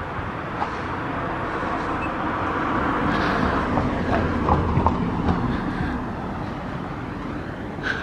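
Road traffic: the rumble and tyre noise of a passing vehicle, swelling to a peak about halfway through and then fading.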